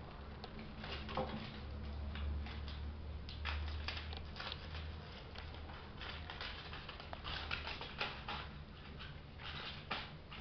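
A kitten scampering and batting a small toy across a hard floor: light, irregular pattering and clicking taps of paws and the skittering toy, over a low steady hum.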